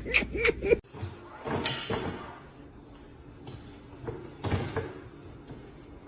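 A few scattered thumps and knocks, the strongest about a second and a half in and again past the middle, after a short run of rising-and-falling calls that cuts off abruptly under a second in.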